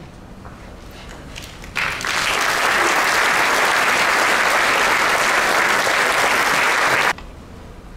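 Audience applauding, starting about two seconds in and cutting off suddenly a second before the end.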